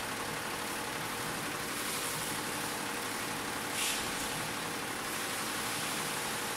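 Ten-head, nine-needle Butterfly embroidery machine stitching garments at high speed, a steady dense mechanical clatter of the needle heads. A short hiss about four seconds in.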